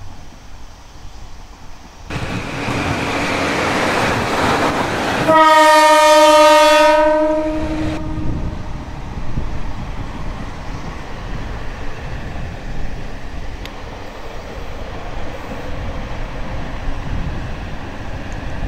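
Yellow diesel railcar train on the Yodo Line passing along an embankment. Its running noise rises suddenly about two seconds in, then its horn sounds one steady blast of about two seconds, the loudest sound here. After that the train's rumble carries on at a lower level as it moves away.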